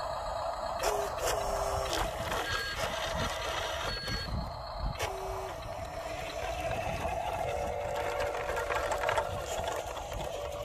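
Toy-grade RC low-loader truck driving off, its electric drive motor and gearbox whining steadily and rising a little in pitch after about seven seconds, with a few short electronic beeps.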